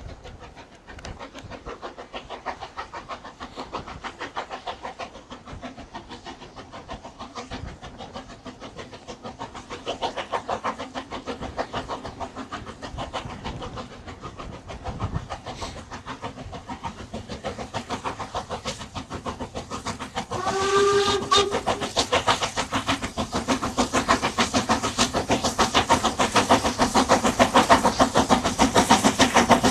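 Harz narrow-gauge steam locomotive approaching, its exhaust beating fast and evenly and growing louder. About two-thirds of the way through comes one short blast on its steam whistle.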